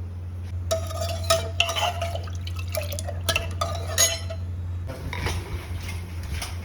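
A metal spoon stirring and scraping in a metal cooking pot, with ringing clinks against the pot for about three seconds, then softer stirring.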